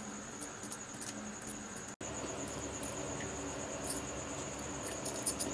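A cricket trilling steadily in the background: a thin, high, finely pulsing tone, with faint scattered clicks. About two seconds in the sound cuts off abruptly and resumes with a slightly fuller, even hiss under the trill.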